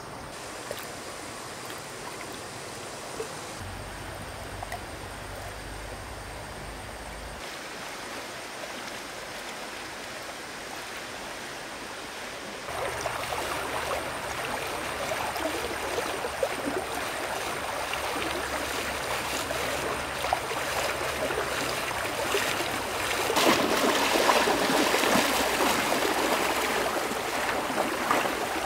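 Stream water running, louder from about halfway through and loudest near the end.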